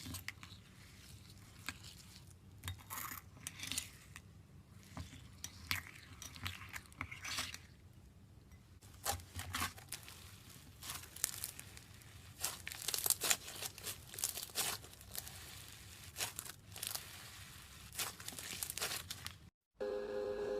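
Slime being squished and worked by hand, giving irregular crackling clicks and pops. Near the end it cuts out abruptly and music begins.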